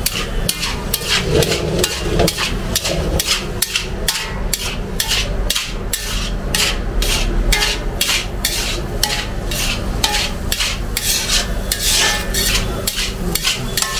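Metal spatula scraping and tossing rice around a large iron kadai while pulao is stir-fried, in quick repeated strokes about three a second.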